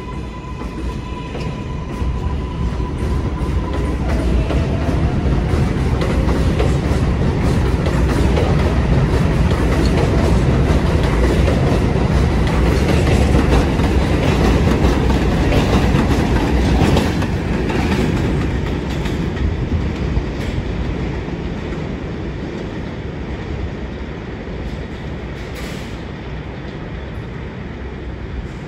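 R142-series subway train running on elevated track: wheels clattering over rail joints, with some wheel squeal. It starts with a steady high whine, then grows louder over several seconds, stays loud for about ten seconds and slowly fades.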